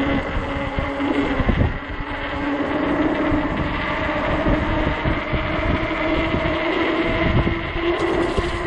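Wind buffeting the microphone in low gusts over the steady whine and tyre hum of a 48-volt fat-tire e-bike under way.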